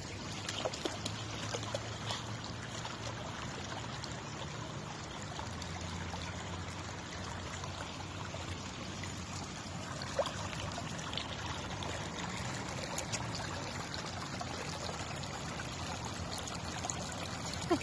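Shallow stream of water running over stones, a steady trickling rush, with a few brief clicks.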